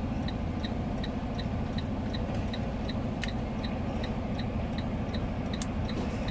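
Semi-truck's diesel engine running steadily, heard inside the cab, with a quick, even ticking over it, about two or three ticks a second.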